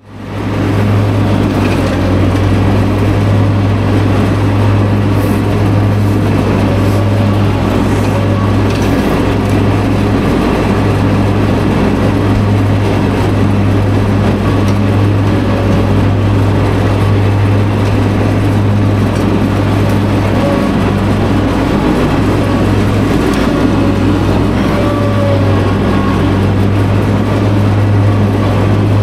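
Zero-turn mower with a 60-inch deck and bagger, its engine and blades running in a steady loud drone as it drives over the lawn picking up dethatched grass.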